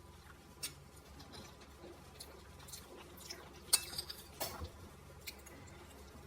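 Eating sounds: a few scattered sharp clicks and taps of cutlery against dishes, the loudest just past the middle, followed by a quick cluster of smaller ones.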